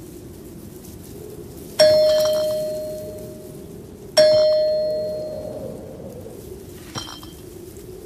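A bell-like ding rings out twice, about two and a half seconds apart, each strike fading away over a second or two, followed by a much fainter ding near the end. A steady low hum runs underneath.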